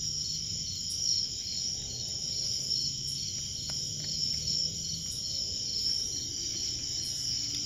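Night-time crickets trilling steadily in several high layers, one of them pulsing about three times a second.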